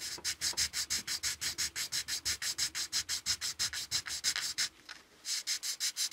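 A model car grille being hand-sanded on 180-grit sandpaper: a fast back-and-forth rasp of about six or seven strokes a second, with a brief pause near the end before it carries on.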